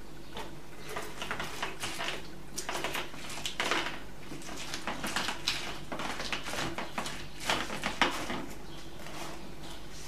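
Lemon halves being twisted and pressed by hand on a plastic citrus juicer: irregular squelching and scraping of rind against the plastic reamer, with a few sharper knocks, the loudest about eight seconds in.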